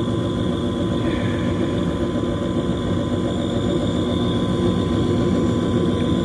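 Furnace running: a steady motor drone with a faint constant whine.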